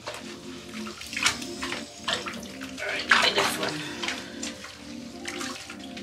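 Water splashing and sloshing in a bathtub as a small wet puppy is scrubbed with a washcloth in shallow soapy water. The louder splashes come about a second in and again around three seconds in.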